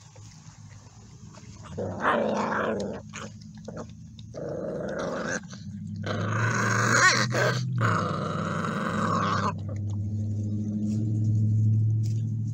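Pit bull puppies growling while they eat together from one food bowl. Rough growls start about two seconds in and settle into a steady low growl for the last few seconds.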